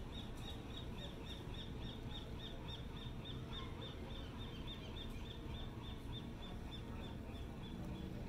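A fast, even run of short high chirps, about four a second, over a steady low background rush.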